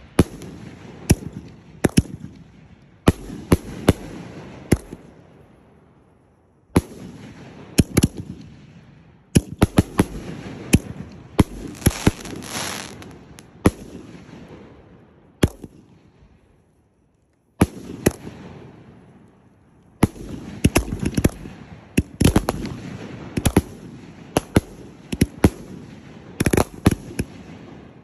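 Duck Long Dong fireworks cake firing: a run of sharp aerial bursts, some single and some in quick clusters, each fading out in echo. The sound drops out completely for about a second and a half a little past halfway, then the bangs resume.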